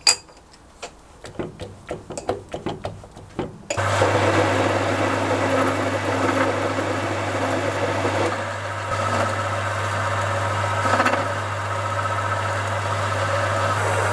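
Irregular clicks and ticks as the lathe carriage controls are worked by hand. About four seconds in, the Halifax 524 metal lathe starts abruptly and runs steadily with a low motor hum and a hiss, dipping briefly about halfway through.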